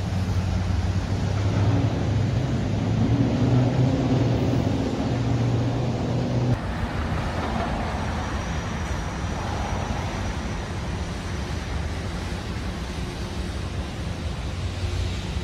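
City road traffic: a motor vehicle's engine running close by with a steady low hum. About six and a half seconds in the hum cuts off suddenly, leaving an even traffic rumble.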